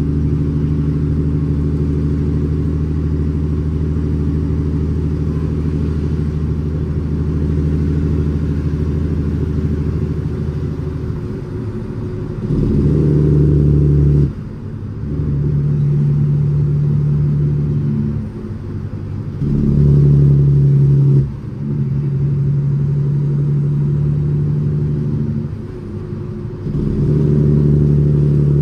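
Cummins ISX engine of a fully loaded International ProStar dump truck running under load, heard from inside the cab. The engine note is steady at first. From about eleven seconds in, its loudness and pitch step up and down several times, with short dips in between.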